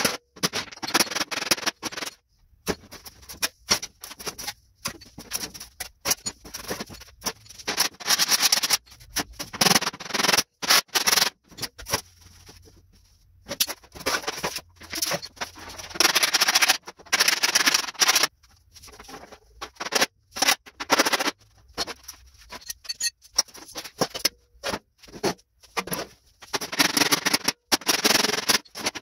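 Body hammer striking a steel car fender against a dolly in quick runs of blows with short pauses between: hammer-and-dolly work straightening out a badly dented fender.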